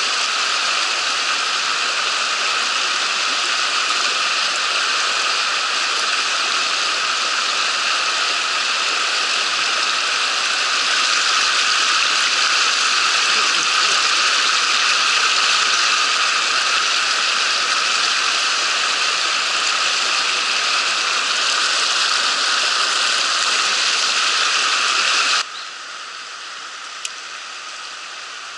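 Rushing mountain-stream water, a loud steady hiss, which drops suddenly to a much quieter level about 25 seconds in, followed by one brief click.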